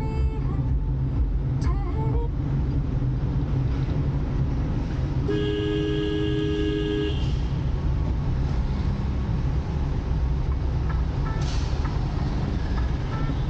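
Steady rumble of road traffic and vehicle running noise, with a vehicle horn sounding one steady honk of about two seconds in the middle.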